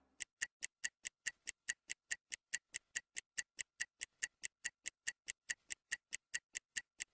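Stopwatch ticking in sharp, even clicks, about five a second, timing a ten-second rest interval between exercises.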